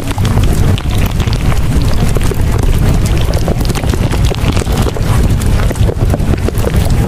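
Loud, continuous rushing noise with a heavy low rumble and many small crackles, like wind or surf: a masking sound track of the kind laid over subliminal affirmation audio.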